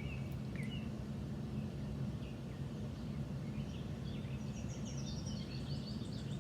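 Pet bird chirping: a few short rising chirps in the first second, then a run of quicker, higher chirps near the end, over a steady low hum.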